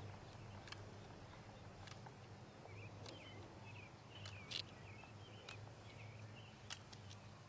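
Faint outdoor ambience over a low steady hum, with small birds chirping a few times in the middle and a few scattered sharp clicks, the loudest about halfway through.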